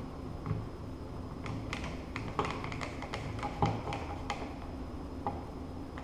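Hand screwdriver turning the screws of a wall switch plate: a cluster of small sharp clicks and ticks of the tip working in the screw heads, densest through the middle.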